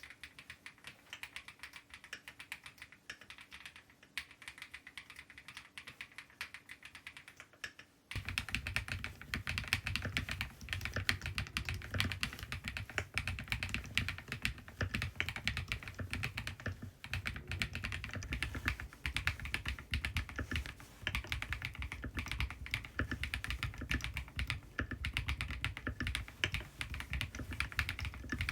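Continuous fast typing on a KiiBOOM Phantom 81 V2 mechanical keyboard, a dense run of key clicks. About eight seconds in the typing becomes much louder and deeper.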